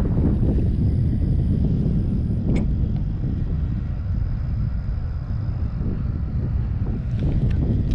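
Wind buffeting the microphone: a steady low rumble, with one light click about two and a half seconds in.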